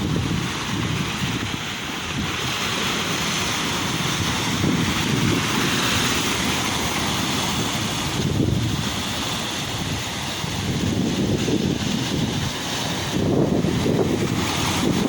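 Sea waves washing on the shore, their hiss swelling and easing, with wind buffeting the microphone in gusts.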